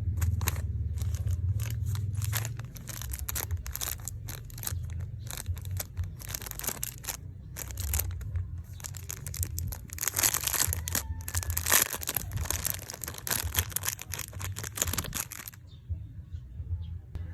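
Packaging being torn open and crinkled by hand: a dense run of rustles and crackles that stops about fifteen seconds in.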